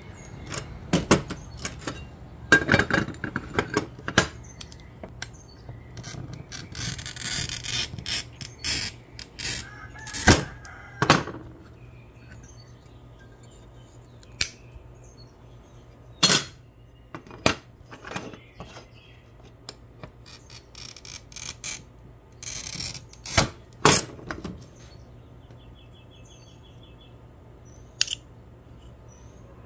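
Pistol-grip oil-fed glass cutter scoring stained glass with a scratchy hiss, twice, among sharp clicks and snaps of glass breaking and tools knocking on the grid work surface. A single snap near the end as running pliers break the glass along the score.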